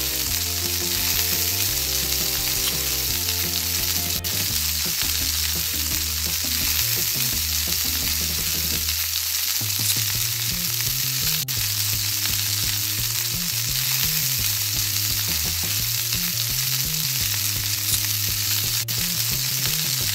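Continuous frying sizzle, a steady hiss like food in a hot wok, over background music with a low, stepping melody.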